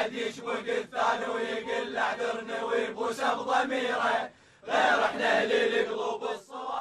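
A group of young men chanting a protest song together in Iraqi Arabic, line by line, with a short pause between lines about four and a half seconds in.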